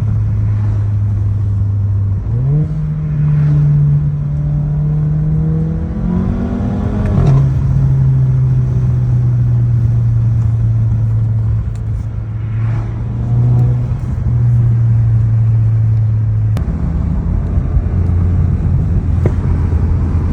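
2015 Volkswagen Golf GTI with an APR Stage 2 tune, its turbocharged 2.0-litre four-cylinder engine running under way with a steady drone. About two seconds in, the pitch jumps up and keeps climbing until about seven seconds, then drops back and holds steady. Near the end it steps lower again.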